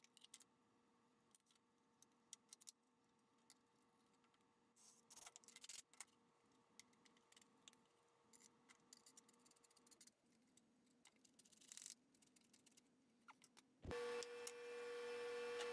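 Near silence, with a few faint scattered clicks and taps. Near the end a faint steady hum comes in.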